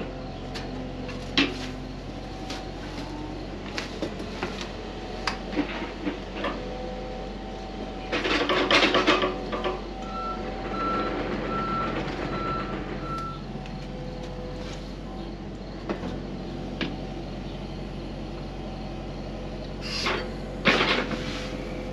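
Diesel engine of a working excavator running steadily, with scattered clanks and knocks and a loud noisy burst lasting about a second and a half, about eight seconds in. Shortly after, a backup alarm beeps about twice a second for some three seconds.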